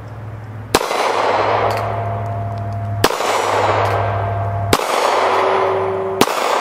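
Four shots from a North American Arms .22 Magnum mini revolver, spaced about one and a half to two seconds apart, each echoing through the woods. Each shot is followed by a thin ringing from a struck steel target.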